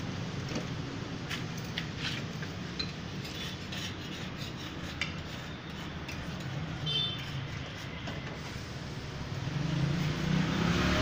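Hand scraper scraping old paint off a steel gate in short, irregular strokes. A steady hum of street traffic runs underneath and grows louder near the end.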